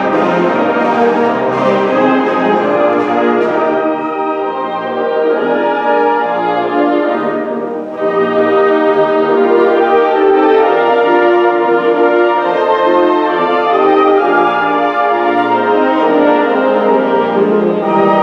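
Wind ensemble playing full-band music with sustained brass-heavy chords. The sound dips briefly about eight seconds in, then the full band comes back louder.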